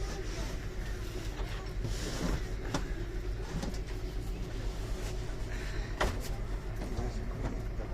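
Kalka–Shimla narrow-gauge toy train running: a steady low rumble with a faint steady hum and scattered clicks, one sharp click about six seconds in.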